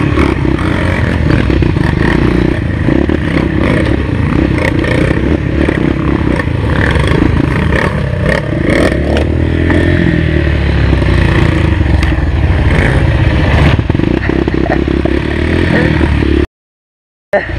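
Trail motorcycle engine running and revving over rough ground, with scraping and clattering from the bike and the terrain. The sound cuts out completely for under a second near the end.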